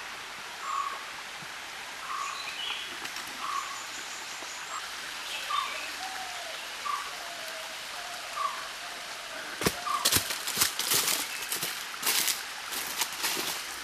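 Woodland ambience: a bird repeats a short call about once a second over a steady hiss. From about ten seconds in, a run of sharp crunching steps on dry leaves and twigs.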